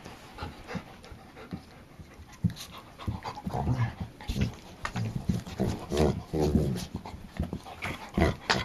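Two dogs play-fighting: panting and low, rough growling with scuffling knocks as they wrestle on the carpet. It is quiet at first and grows busier from about two and a half seconds in.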